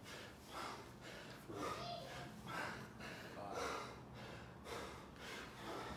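A man breathing hard under exertion, with a sharp gasp or grunt about once a second in time with his dumbbell squat reps.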